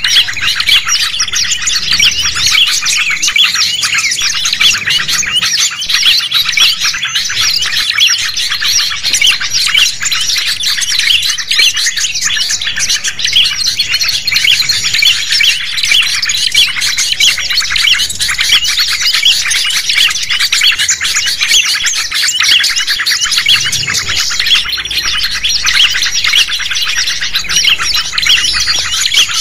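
Bird-lure (suara pikat) recording: many small songbirds chirping and calling at once in a dense, unbroken chorus of short, high overlapping notes. Mixes of this kind are played to draw wild birds in for trapping.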